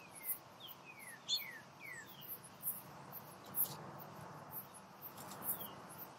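Insects chirping in short, very high-pitched pulses, with a bird giving short falling whistled notes in a quick run, then again near the end. A few light clicks and rustles come from a canvas blanket roll and its leather belts being handled.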